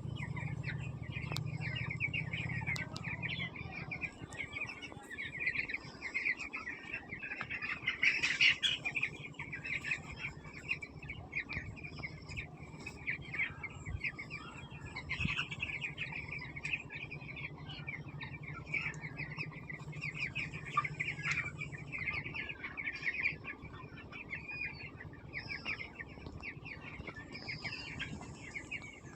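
A large flock of poultry chicks peeping continuously, a dense chorus of many overlapping high chirps, with a low steady hum underneath at times.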